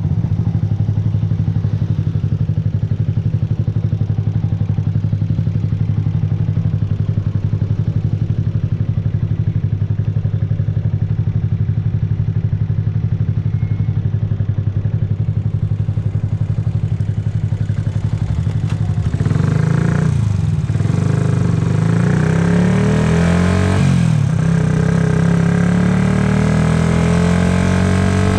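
Yamaha YZF-R125's 125 cc single-cylinder four-stroke engine idling steadily. About two-thirds of the way in the revs climb as the bike pulls away, dip at a gear change, then climb again.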